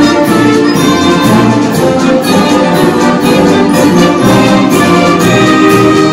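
School symphonic band playing loudly: brass, woodwinds and percussion together in full sustained chords over a steady percussion beat.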